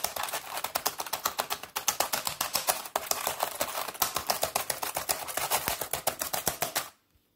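Rapid key presses on a computer keyboard, many clicks a second in an unbroken flurry, as when mashing keys to play a rhythm game. The clicking cuts off suddenly near the end.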